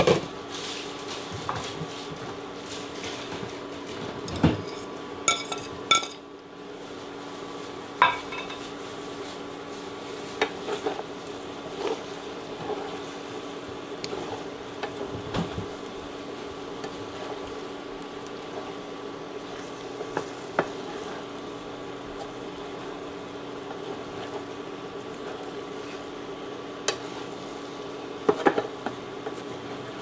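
Spatula knocking and scraping in a skillet as a stir-fry of rice cakes and roasted cauliflower is tossed, with scattered sharp clacks against the pan and a little sizzling over a steady hum.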